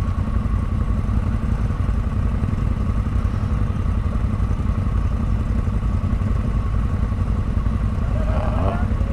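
Off-road vehicle engine running steadily at low revs, a dense low rumble with a steady whine over it. A brief voice-like call sounds near the end.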